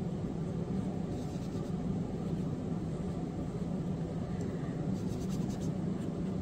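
Light scratchy rubbing of fingertips working powder foundation into the skin of the face, over a steady low hum.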